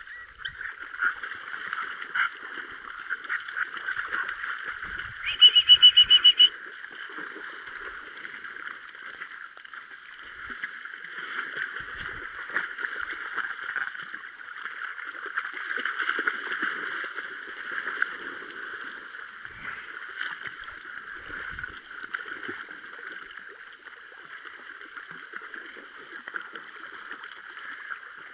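Shallow stream water splashing and swishing as Small Munsterlander puppies wade and paddle through it. About five seconds in there is a short burst of loud, high, rapidly repeated squeaks.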